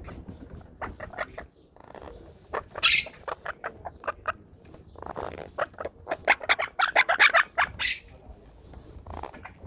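Monk parakeet calling from its nest: a string of short, harsh chirps, with one louder screech about three seconds in and a fast run of calls from about six to eight seconds in.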